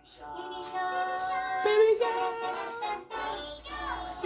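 Music with a high singing voice holding long notes.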